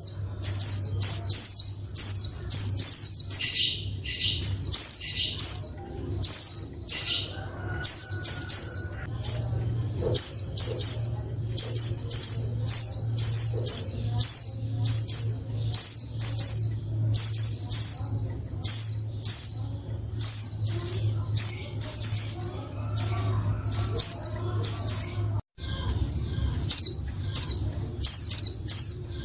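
Female white-eye (pleci) calling: short, high chip calls, each a quick cluster of falling notes, repeated about twice a second with a brief break near the end. A steady low hum runs underneath. This is the call used to draw male white-eyes into answering and singing.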